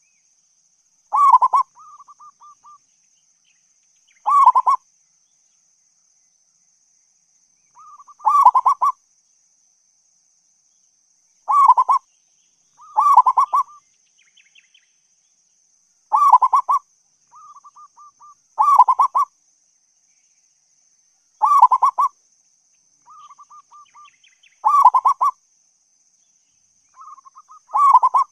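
Zebra dove (local perkutut) cooing: about ten loud, short stuttering coo phrases, one every three seconds or so. Several are followed by a softer run of quick repeated notes.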